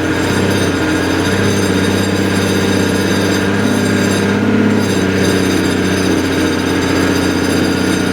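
Heavy engine running steadily at a constant speed, with an even mechanical hum.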